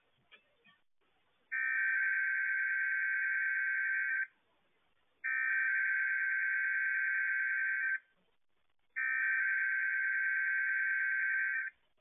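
Emergency Alert System SAME header data burst, sent three times from a TV set. Each burst is a steady buzzing warble of digital tones about two and a half seconds long, with about a second's pause between them. It opens the station's required weekly test.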